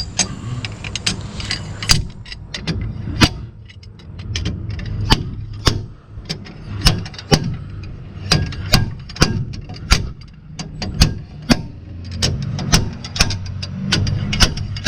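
Repeated sharp metal-on-metal strikes, irregular at about one or two a second, as a tool is hammered to work the old bearing and seal out of a pickup's rear axle housing without a bearing puller. A steady low hum runs underneath.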